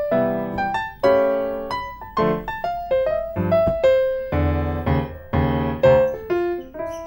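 Background music on piano or electric piano: a melody of single notes and chords, each struck and left to fade.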